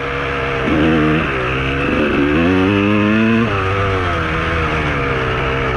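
KTM 200 two-stroke single-cylinder dirt bike engine under way, the revs climbing for a few seconds, then dropping suddenly about three and a half seconds in and running lower, easing down after that.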